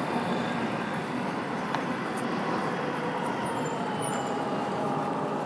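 Road traffic: vehicles driving past on a street, a steady rush of engine and tyre noise with a faint engine tone in it.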